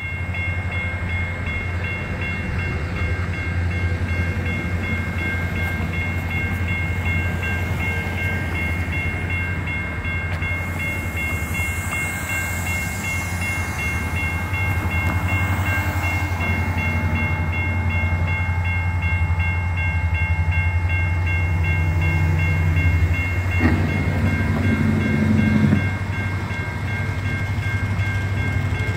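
Railroad grade-crossing bell ringing steadily over the low hum of an approaching diesel freight locomotive. A road vehicle passes about 11 to 15 seconds in. About 24 seconds in there is a louder low tone for about two seconds.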